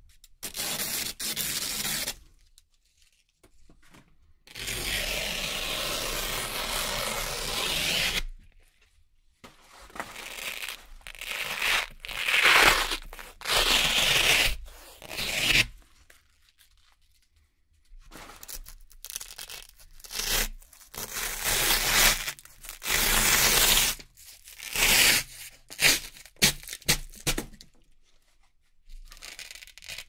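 Velcro (hook-and-loop) strips being ripped apart in a series of pulls with quiet gaps between them. One long, even rip lasts about three and a half seconds, and the rest come as shorter, sharper tears, some in quick succession.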